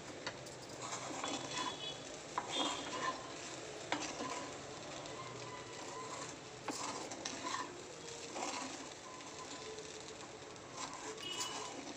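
Spatula stirring and scraping poha around a stainless steel kadai in repeated strokes, with a few sharp knocks of the spatula against the pan, over a faint sizzle from the hot pan.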